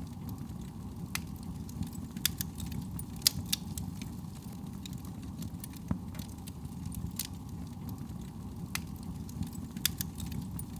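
Wood fire crackling and popping, with irregular sharp snaps over a steady low rumble of flame and soft breeze.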